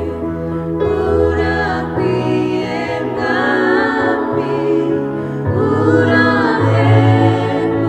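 A small group of mixed voices sings a Kinyarwanda worship song in parts over held chords and bass notes from a Yamaha electronic keyboard.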